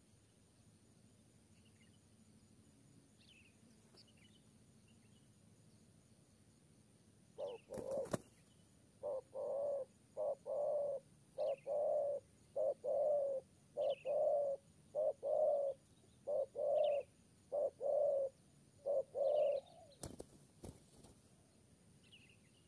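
Spotted dove cooing: a run of about a dozen short, low coos in quick groups lasting roughly ten seconds. A brief sharp noise comes just before the cooing starts and another just after it ends, and faint high chirps of small birds are heard throughout.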